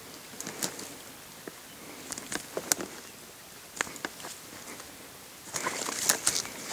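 Scattered snaps and crackles of dry grass and brush underfoot, sparse at first and turning into denser, louder crunching footsteps about five and a half seconds in.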